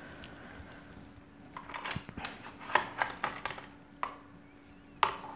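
Handling noise as a digital luggage scale and its strap are lifted out of a cardboard box: scattered rustles of the packaging and light clicks and knocks, starting about a second and a half in, over a faint steady hum.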